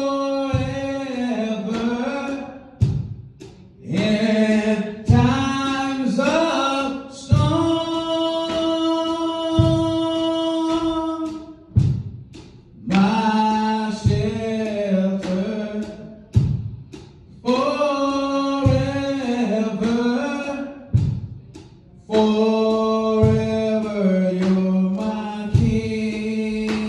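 Gospel worship singing: voices hold long notes in phrases with short breaks between them, over a low, steady beat.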